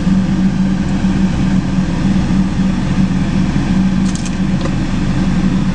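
Pickup truck engines held at steady revs under load as one pickup tows another through deep mud on a strap.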